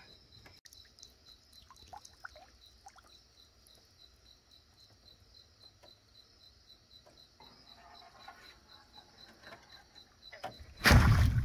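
Night insects, crickets, trilling steadily with about three pulses a second, with faint ticks and water sounds. Near the end a sudden loud thump as the frog gig is jabbed at a frog on the bank.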